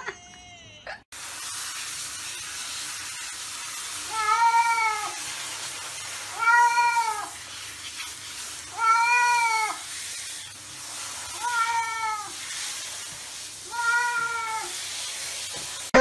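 A cat meows five times, each meow about a second long, rising and then falling in pitch, at intervals of roughly two and a half seconds. A steady hiss runs underneath.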